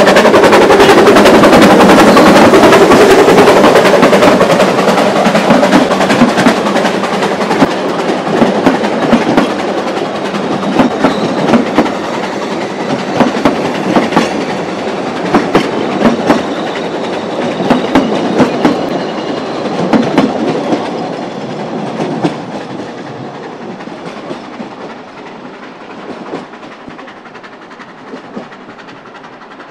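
Hunslet 2-4-0 narrow-gauge steam locomotive passing close by at the head of its train, loudest in the first few seconds. Then the carriages roll past with sharp clicks of wheels over rail joints, and the sound fades away as the train goes off.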